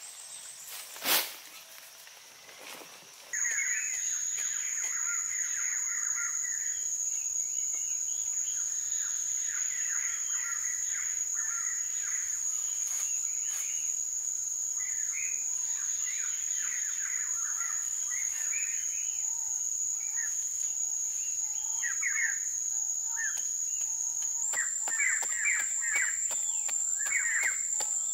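Forest ambience: a steady, high-pitched insect drone with birds chirping and calling over it. A single sharp knock sounds about a second in, before the drone sets in.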